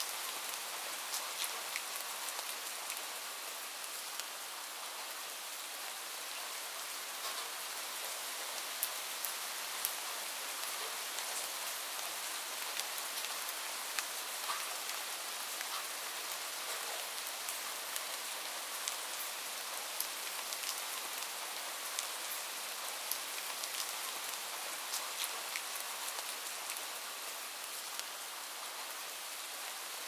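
Light rain falling: a steady, even hiss with many small, separate drop ticks scattered through it.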